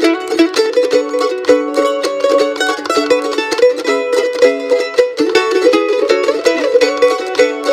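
Flat mandolin playing a fast bluegrass breakdown instrumental in rapid runs of picked notes.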